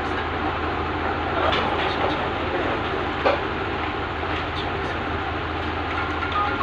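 Steady background din with a low hum underneath, faint short tones drifting in and out, and a few sharp clicks.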